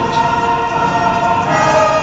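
Background music of sustained, choir-like chords, changing chord about one and a half seconds in.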